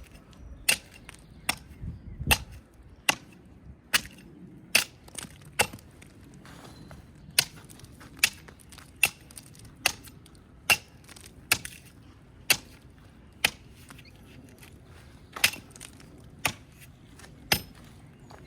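Repeated chopping blows into a tree's wood and bark, about one a second, with two short pauses, as a ring is cut around the trunk to girdle it.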